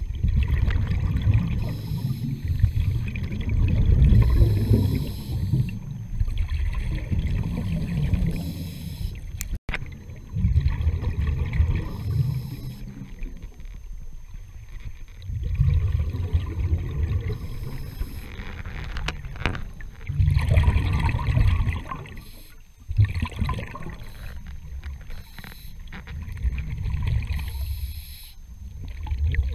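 Scuba diver breathing through a regulator underwater: exhaled bubbles rumble in bursts every few seconds, with a brief hiss of inhalation in the quieter gaps between them, heard through an underwater camera housing.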